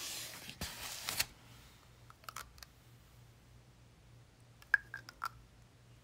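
Handling noise at a desk: a brushing, sliding rustle in the first second or so as a notebook is moved onto the table, then a few sharp, light clicks and taps of small hard objects, most of them bunched together about five seconds in.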